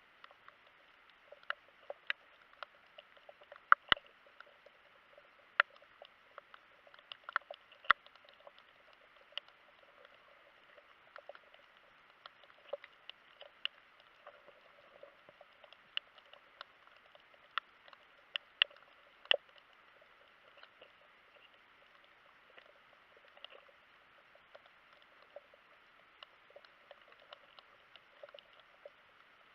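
Underwater ambience heard through a camera's waterproof housing: a faint hiss with scattered sharp clicks and crackles, a few louder snaps among them.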